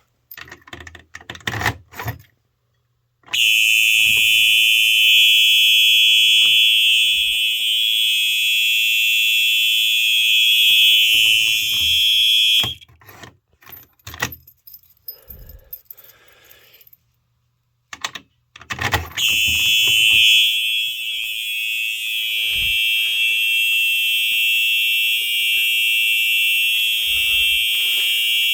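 Simplex 4903 electronic fire-alarm horn sounding a steady, loud, high-pitched continuous tone. It starts a few seconds in, cuts off abruptly, and after some clicks and knocks from the wiring being handled it sounds again, a little quieter, as its power is unplugged and reconnected.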